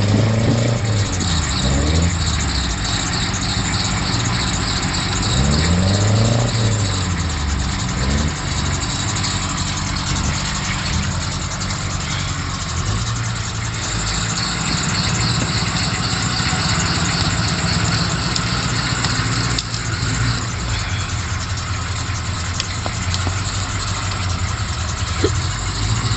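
Chevrolet K5 Blazer engine revving as the truck pushes through mud and water. The revs swell up and back down twice in the first several seconds, then run steadier.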